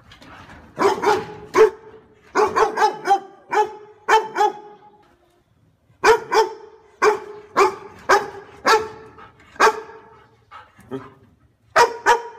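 German Shepherd barking repeatedly, short barks at an even pitch coming in quick runs, with a pause of about a second partway through and a few more barks near the end.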